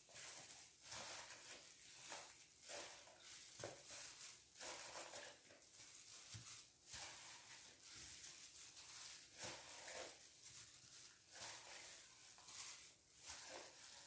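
Faint, irregular rustling and crinkling of disposable plastic gloves and the bucket's plastic bag liner, with soft knocks, as blocks of white cheese are handled and packed into plastic tubs.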